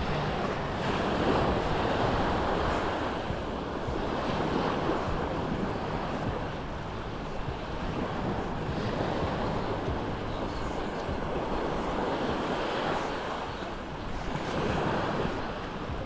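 Sea waves washing onto the shore, swelling and easing every few seconds, with wind noise on the microphone.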